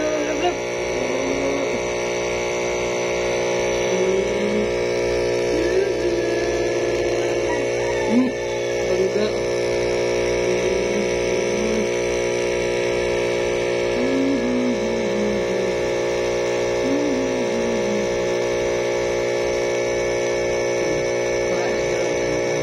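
A steady electric hum with many even overtones, unchanging throughout, with faint short scraps of a distant voice over it now and then.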